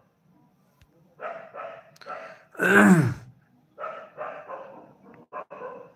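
A dog barking repeatedly in short barks, in clusters of two or three, with one louder, longer call falling in pitch about halfway through.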